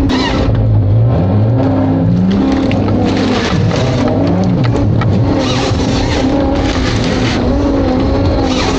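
Diesel engine of a Ponsse Ergo forestry harvester running under varying load, its pitch rising and falling as it works. Several short bursts of high rasping hiss come and go over it.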